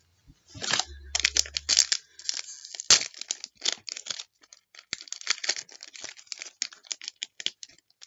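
Trading card pack wrapper being torn open and crinkled, with cards handled: a dense run of crackling and rustling, with one sharp crack about three seconds in.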